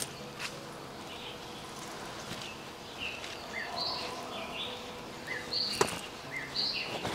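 Birds calling in woodland, short chirps repeating every second or so. There is one sharp knock nearly six seconds in.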